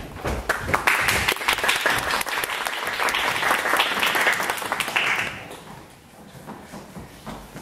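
Audience applauding at the end of a scene, the clapping fading away about five seconds in.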